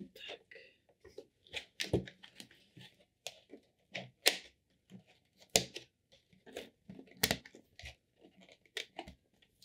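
Clear plastic moss pole being pressed and snapped shut around sphagnum moss: irregular sharp plastic clicks and snaps, a few of them loud, with crinkling and rustling of the plastic and moss in between.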